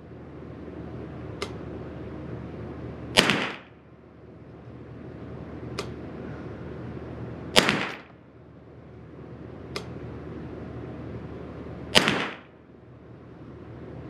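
Derya TM22 .22 LR semi-automatic rifle firing three single shots about four and a half seconds apart, each crack followed by a short echo off the walls of the indoor range. The load is a 40-grain Hornady lead round nose at 1070 ft/s. A much fainter sharp click falls between the shots, over a steady low hum.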